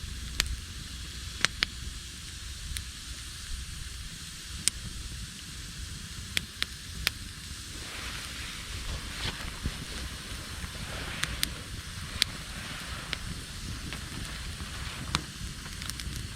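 Campfire of gathered branches and driftwood burning steadily, with sharp, irregular crackles and pops every second or so over a low, steady rush of flame.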